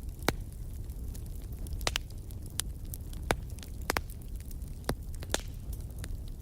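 Fire crackling: a steady low rumble of burning, broken by about seven sharp, irregularly spaced pops and snaps.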